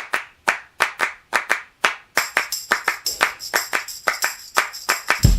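Rhythmic hand claps, about two a second at first, coming quicker from about two seconds in as a jingling tambourine joins; a low bass beat comes in right at the end, as the start of a music track.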